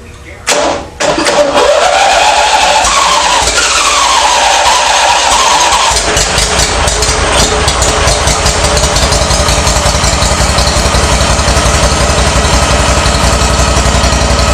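Briggs and Stratton V-twin lawn mower engine starting about a second in, its speed rising and wavering for a few seconds, then running steadily. The engine now starts readily with its valve clearances freshly set to .004 in.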